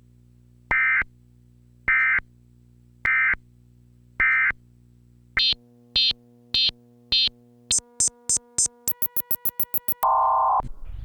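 Electronic beeps that speed up and climb in pitch: four evenly spaced beeps, then faster and higher ones, then a rapid high-pitched run, over a faint low drone. About ten seconds in comes a short, lower steady tone.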